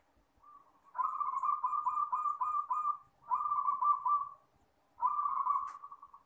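Zebra dove (perkutut) singing: three phrases of fast, rolling coos, the first about two seconds long and the other two shorter.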